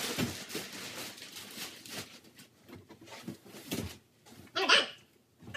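Sped-up, high-pitched audio of a mattress being pushed into place on a bed frame: scattered soft thumps and rustling, then a short squeaky sped-up voice about four and a half seconds in, the loudest sound.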